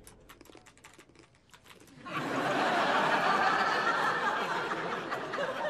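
Computer keyboard typing, quick light clicks for about two seconds, then a studio audience laughing for the rest.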